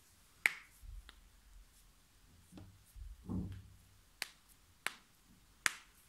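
Finger knuckles cracking: a handful of short, sharp pops, a loud one about half a second in and three more in the last two seconds, with a duller, softer sound near the middle.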